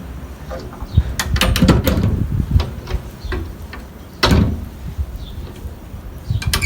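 Clatter of sharp clicks and knocks over a low rumble, with one louder knock about four seconds in.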